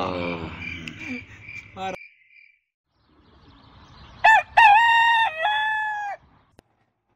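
A single rooster crow of about two seconds in several stepped parts, coming after a short silence: a dawn sound marking daybreak. Before it, the last of a song fades out.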